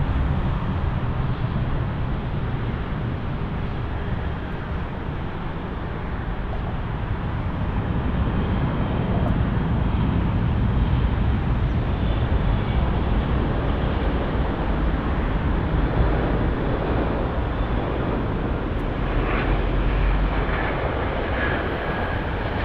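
Airliner engines at close range, a steady rumble with a faint whine, growing a little louder a few seconds in.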